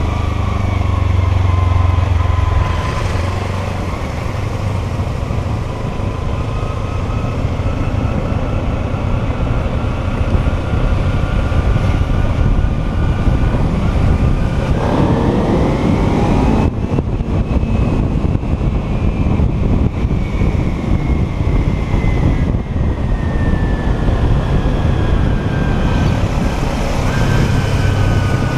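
Kawasaki Ninja 300's parallel-twin engine running while the motorcycle is ridden, over a steady rush of wind and road noise. The engine note drifts down, climbs sharply about halfway through as the bike accelerates, then falls slowly again.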